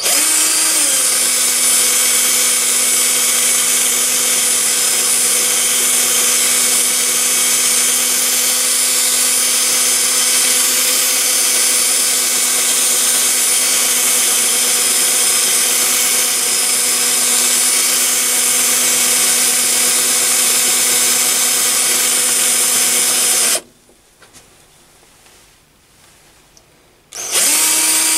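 Toolpost-mounted drill motor on a mini lathe spinning a centre drill into a brass tube, spotting an off-centre hole. It makes a steady motor whine that dips slightly in pitch about a second in, cuts out abruptly about 23 seconds in, and starts up again near the end.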